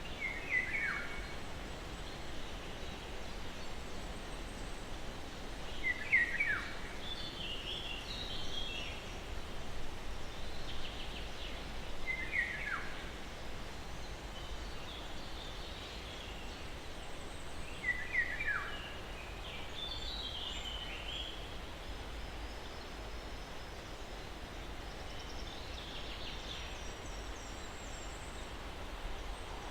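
Birds singing over a steady, soft wind-like hiss. A short descending phrase repeats about every six seconds, four times, with higher, fainter chirps in between.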